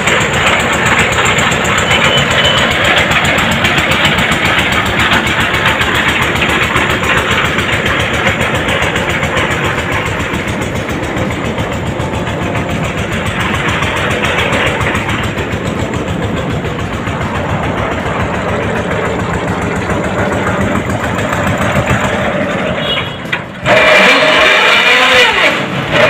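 A borewell drilling rig's engine running steadily at speed, loud and continuous. Near the end the engine sound drops away and a louder sound with a wavering pitch cuts in.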